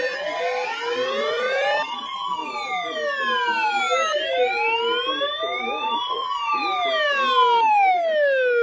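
Wailing siren, its pitch rising and falling slowly about once every four seconds, with several wails overlapping in the first two seconds; it cuts off abruptly at the end.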